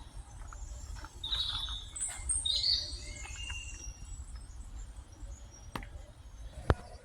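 Small birds chirping in short, high calls, busiest from about one to three seconds in, over a low rumble. Two sharp clicks come near the end, the second one loud.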